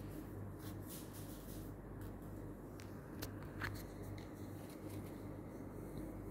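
Faint crinkling and rustling of a crumpled tissue paper being rubbed over a glass jar, in short irregular strokes, over a steady low hum.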